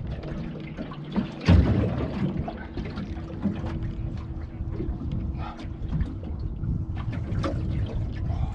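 Water sloshing and trickling around a small boat, with scattered knocks on the deck as the fish is handled and one loud thump about one and a half seconds in. A steady low hum runs underneath.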